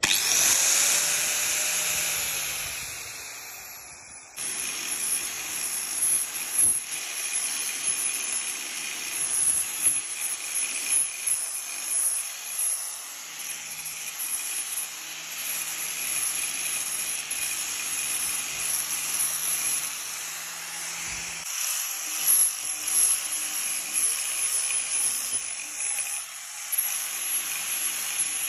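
Angle grinder with a flap disc sanding the end-grain face of a wooden slab. It starts with a rising whine that fades over the first few seconds, then from about four seconds in runs steadily with a high, gritty rush that swells and dips as the disc is pressed to the wood.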